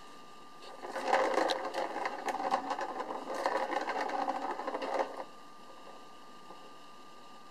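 Plastic ball rolling fast around the circular track of a cat's track-and-scratch-pad toy, batted by a kitten's paw: a steady rattling rumble full of small clicks that starts about a second in and stops abruptly after about four seconds.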